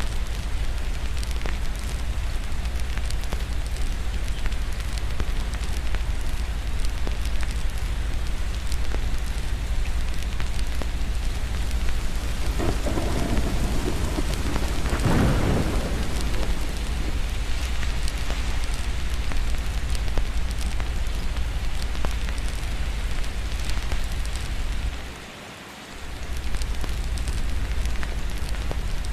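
Steady rain mixed with the crackle and pops of a fireplace, with a rumble of thunder swelling and fading about halfway through. The sound briefly drops away near the end.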